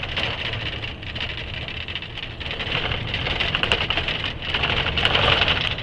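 Truck driving over a rough gravel track, heard from inside the cab: a low engine rumble under a dense crackle and rattle of gravel under the tyres and the shaking cab, growing louder toward the end.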